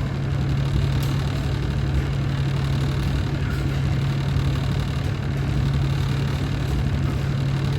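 A steady low machine hum with one droning tone, even throughout, like a motor or engine running.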